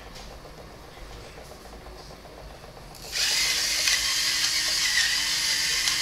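A loud, steady whirring hiss that starts suddenly about three seconds in, after a quiet stretch with faint clicks.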